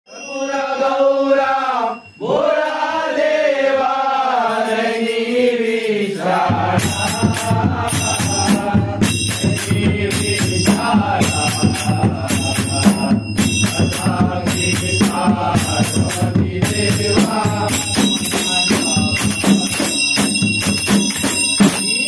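Background music: a solo voice sings long, wavering held notes, then about six seconds in a fast percussion beat with a heavy bass comes in and continues.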